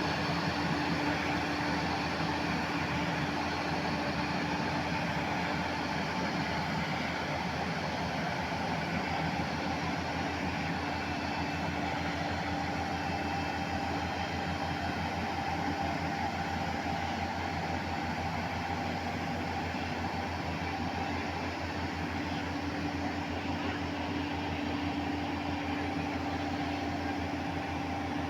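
A JCB excavator's diesel engine running steadily: a constant, unchanging drone with a faint steady whine above it.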